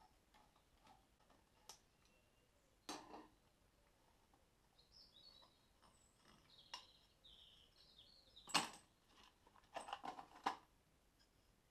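Light metallic clicks and clinks of small clutch parts from a five-spring Burman motorcycle clutch being handled: nuts and springs from the pressure plate being taken off and dropped into a plastic tray. One sharp clink about three seconds in, the loudest just past the middle, and a quick rattle of several near the end.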